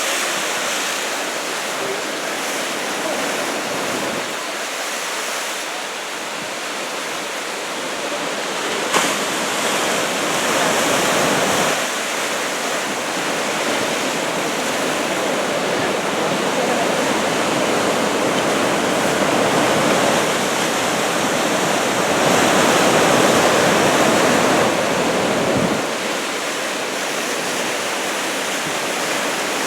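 Heavy ocean surf from a two-metre typhoon swell: waves breaking and washing in as a continuous rush that swells louder and eases, loudest a little past the middle. A single sharp knock about nine seconds in.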